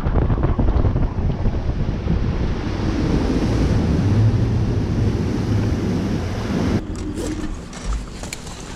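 Bass boat running across the lake: wind rushing over the microphone and water hissing along the hull, over a low engine drone. The noise drops sharply about seven seconds in as the boat slows, and a few light knocks follow.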